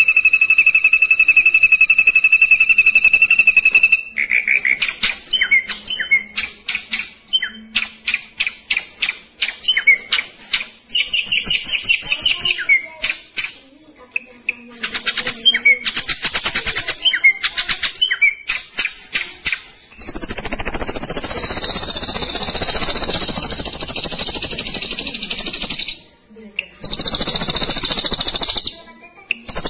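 Ashy drongo singing a fast, varied song: a long steady whistled note, then a rapid run of short repeated notes, then harsh buzzy phrases over the last third.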